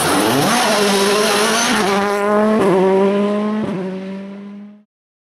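Volkswagen Polo R WRC rally car's 1.6-litre turbocharged four-cylinder engine accelerating hard out of a corner, revs climbing, with two brief dips at gear changes. It fades as the car pulls away, and the sound cuts off just before five seconds in.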